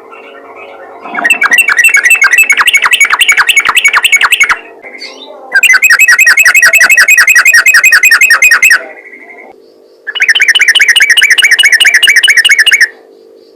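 Trucukan (yellow-vented bulbul) singing in rapid 'ropel' runs: three long bursts of fast, evenly repeated chattering notes, each lasting about three seconds with short pauses between, over a faint steady hum.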